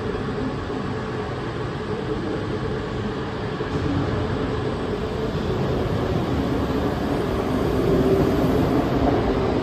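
Passenger train pulling into a covered station platform: a steady rumble of running gear that grows louder through the second half.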